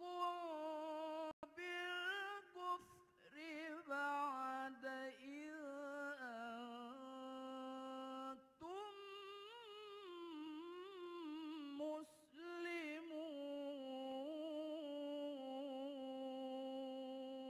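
A man reciting the Quran in the melodic competition style (tilawah), a single voice alone. He holds long notes and ornaments them with wavering melismatic runs, pausing briefly for breath a few times.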